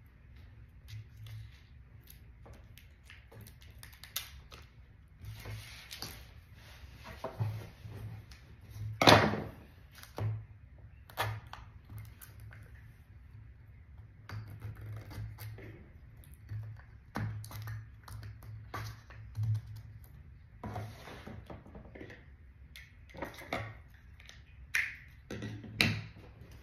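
Scissors snipping and clicking while a small toy package is cut and handled, with irregular taps and crackles. A louder sharp clack comes about nine seconds in.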